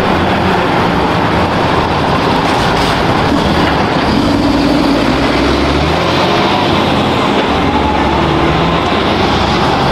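Steady, dense rumble and roar of a heavy vehicle running, cutting off suddenly near the end.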